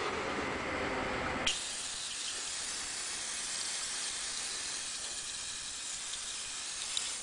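Paint spraying onto a metal miniature as its base coat: a steady hiss that switches abruptly to a brighter, higher spray about a second and a half in.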